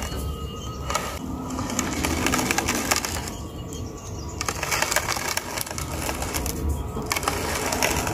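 A heavy bonsai training pot being turned by hand on its cement stand, scraping and grinding with irregular clicks and knocks.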